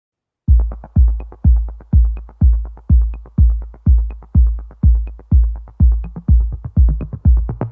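Electronic background music: after a short silence, a steady drum-machine kick beat about twice a second with light ticks between the beats.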